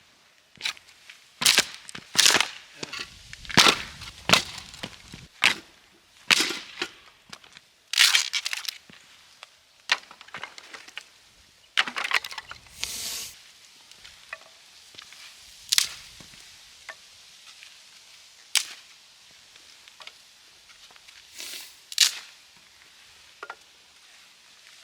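Irregular series of sharp cracks and crunches, a dozen or so loud ones in the first half, thinning out to a few scattered ones later.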